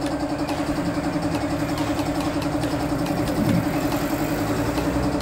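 An engine idling steadily, with a steady low hum and faint ticks about twice a second.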